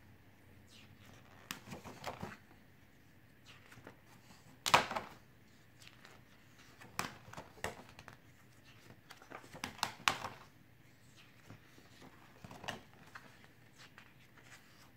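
Stiff photobook pages being turned in a ring binder, a series of short paper swishes and flaps at uneven intervals, the loudest about a third of the way in and again about two-thirds in.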